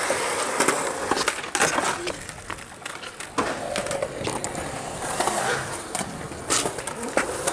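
Skateboard wheels rolling over concrete, broken by several sharp clacks and knocks of boards striking the ground and obstacles.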